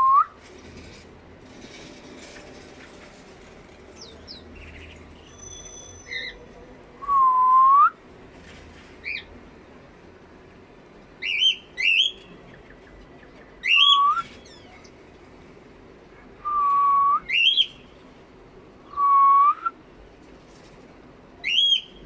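Cockatiels whistling: short, sharp rising calls come every few seconds, and several of them follow a lower, pure whistle note that is held briefly and bends upward at the end.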